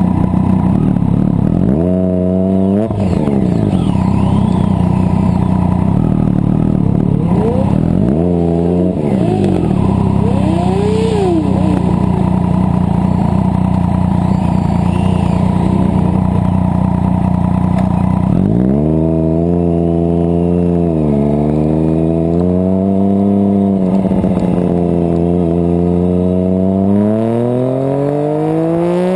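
Race motorcycle engine idling steadily, blipped twice, then revved more freely and pulling away, its pitch climbing as it accelerates near the end. Other engines rise and fall faintly in the background.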